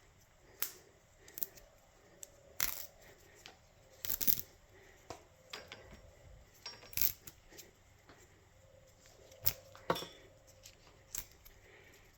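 Irregular short clicks, rustles and tearing sounds of copper wire being worked out of extension-cord insulation that a hand-crank wire stripper has scored open.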